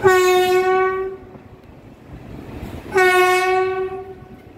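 Indian Railways locomotive horn sounding two blasts at one steady pitch, each a little over a second long, the second about three seconds after the first.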